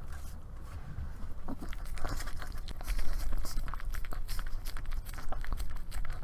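Yorkshire terrier licking and eating a puppuccino of whipped cream from a paper cup held up to a close microphone: a quick run of wet smacking and lapping clicks, getting busier about two seconds in, over a steady low rumble.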